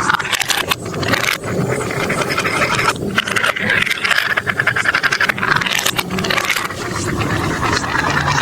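Marbles rolling and clattering down a plastic marble-run track: a continuous rattle full of quick clicks.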